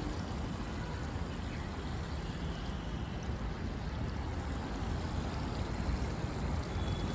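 Water spilling steadily over the stepped edge of an outdoor reflecting pool into the channel below: a continuous, even rushing trickle.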